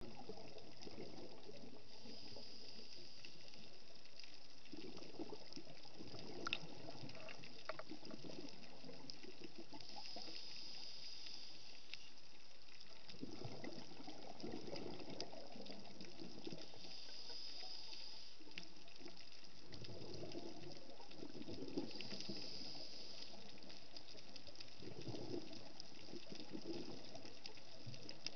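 Scuba diver's regulator breathing underwater: a hissing inhale through the demand valve, then a gurgling rush of exhaled bubbles, about one breath every six or seven seconds.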